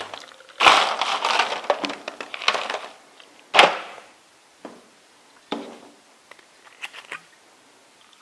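Partly blended frozen aronia berries knocked and scraped out of a blender beaker into a glass jar: about two seconds of rattling, scraping noise, then one sharp knock about halfway through, followed by a few light clicks.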